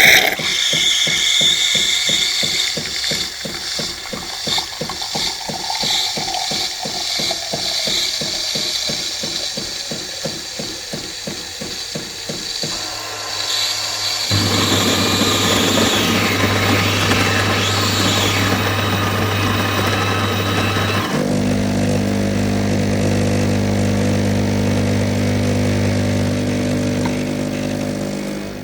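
Krups Intuition automatic coffee machine working through a cappuccino: a fast, even mechanical rattle for about twelve seconds, then after a short pause a steady pump hum with hissing, which changes to a different steady hum about seven seconds later.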